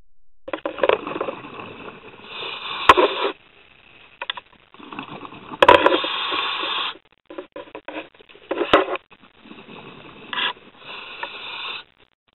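Scuba diver breathing through a regulator underwater: long uneven bursts of breath and bubble noise, each a second or two, with short gaps between them. Three sharp knocks sound through it, each about three seconds apart.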